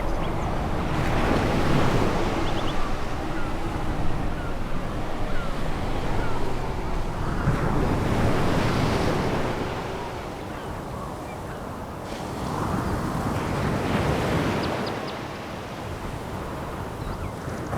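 Sea waves breaking and washing on a pebble beach, swelling and falling back in three surges about six seconds apart.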